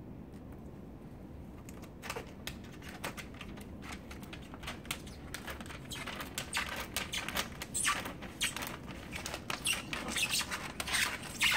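Clear Lintec window film and its plastic backer crinkling and crackling as the tight roll is unrolled and the backer peeled back. The crackling starts about two seconds in and grows denser and louder toward the end.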